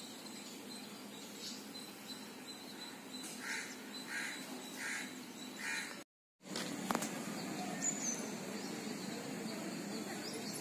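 Bird calls over outdoor ambience: four short calls about half a second apart, then, after a brief dropout, a few high chirps. A faint steady high whine runs underneath.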